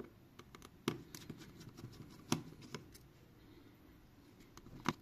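A precision screwdriver unscrewing tiny screws from a smartphone's inner cover: scattered sharp, quiet clicks of the metal tip seating in and leaving the screw heads, with light scraping.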